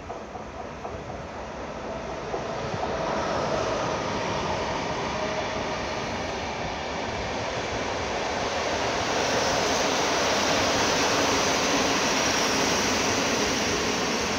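Passenger train hauled by a Newag Griffin (EU160) electric locomotive passing through the station. The steady rumble of wheels on rail grows louder over the first few seconds and then holds, with a faint whine in the first half.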